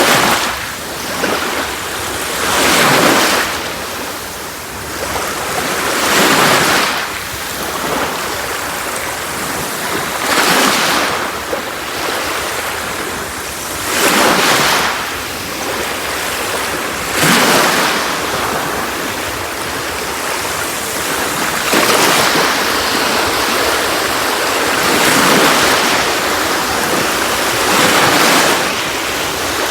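Sea waves breaking and washing on a beach, surging every three to four seconds with a steady wash between them.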